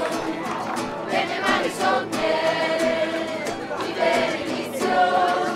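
A group of young people singing a song together in chorus, with long held notes.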